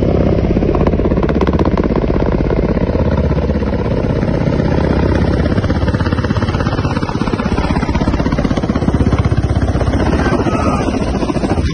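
Kamov Ka-52 attack helicopter flying low and close: loud, steady rotor chop, a fast even pulsing from its coaxial rotors mixed with engine noise.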